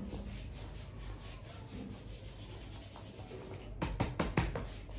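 Rubbing on the skin of a leg being waxed: a run of quick, soft strokes, then several sharper, louder slaps or taps close together about four seconds in.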